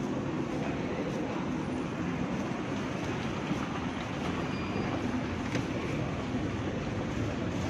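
Escalator running: a steady mechanical rumble from the moving steps and drive, with a faint click about five and a half seconds in.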